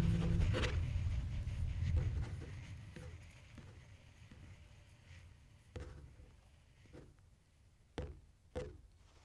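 Abstract sound-design track: a dense low rumble with a held low tone dies away over the first two seconds or so, leaving a faint scratchy texture broken by a few sharp taps, two of them close together near the end, in the manner of a pencil tapping and scratching on paper.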